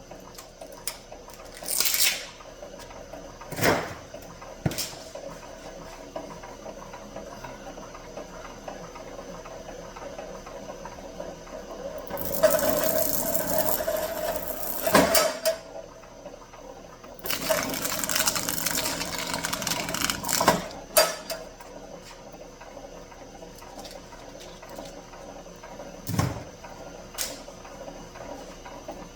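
Electric wire stripping machine running with a steady hum; twice, for about three seconds each, a loud rasping as heavy copper cable is pulled through and its insulation split off. Several sharp knocks and clanks between.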